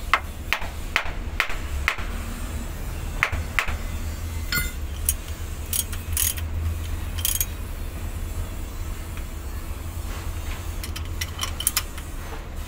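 Irregular sharp metallic clinks and clicks of a ratchet wrench and small fastener parts being handled against a truck transmission's output flange, over a steady low hum. The clinks come in a run at the start, a few more in the middle, and a quick cluster near the end.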